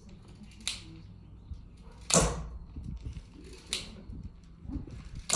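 Concrete rebound (Schmidt) hammer being fired against a concrete column: four sharp clacks about one and a half seconds apart, alternating lighter and louder, the louder ones being the hammer's spring-loaded mass striking the plunger. Each strike tests the surface hardness of the concrete to estimate its compressive strength.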